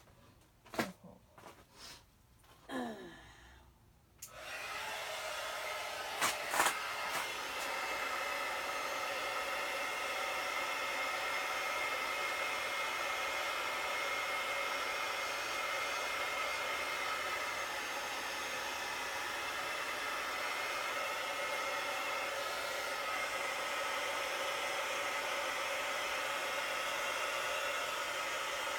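An electric hot-air tool switches on about four seconds in and runs steadily: a fan hiss with a steady whine, blowing over freshly poured resin to level it and draw out bubbles. A few small clicks and handling sounds come before it, and two sharp clicks come just after it starts.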